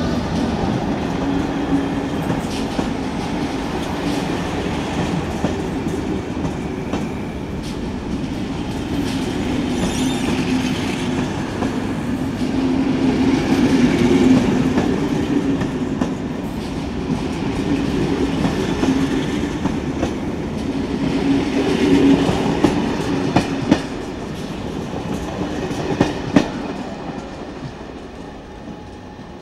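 Passenger train coaches rolling close past, with a steady rumble of wheels on rail. A few sharp clacks come from the wheels over rail joints late on, then the sound fades as the train draws away.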